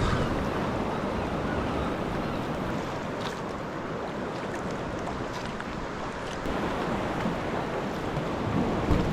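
Wind buffeting the microphone over the wash of sea water around a sea kayak, with a few small splashes.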